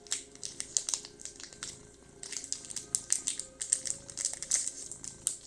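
Foil booster-pack wrapper crinkling and crackling in quick irregular bursts as it is worked open by hand.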